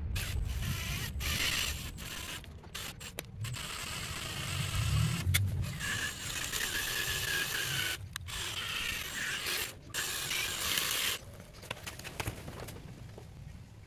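Power drill boring a line of holes through a battery busbar to cut it apart, running in short runs with brief stops as the bit moves from hole to hole, with a whine from the bit cutting metal. The drilling stops about eleven seconds in.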